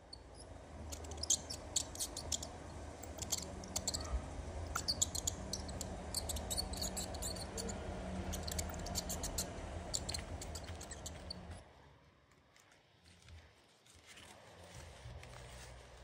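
Mice squeaking and scratching: a rapid run of short, high squeaks and scratches over a low steady hum. The run thins out and then stops suddenly about twelve seconds in.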